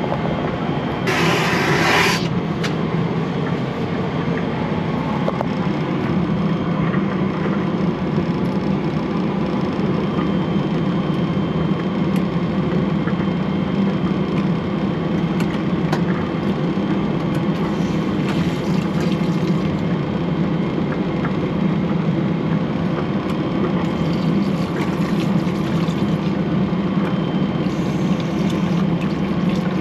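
Steady in-flight drone of a Boeing 777-300ER, heard inside the lavatory. A brief hiss comes about a second in, and near the end the lavatory sink's push tap runs water in short spurts.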